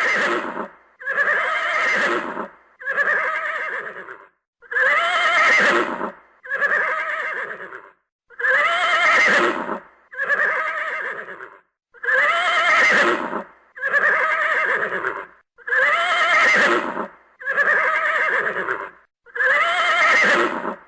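Horse whinnying over and over, about a dozen neighs in a row, one every one and a half to two seconds, each about a second long with a quavering pitch.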